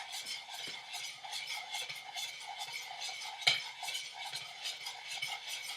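A spoon stirring water and vegetable oil in a bowl, scraping and clinking against the sides in a quick, even rhythm of several strokes a second, with one louder knock about three and a half seconds in.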